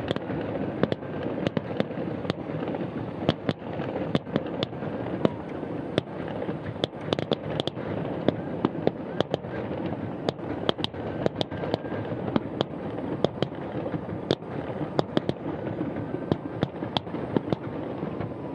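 Fireworks display going off: an irregular run of sharp pops and bangs, a few every second, over a steady background noise.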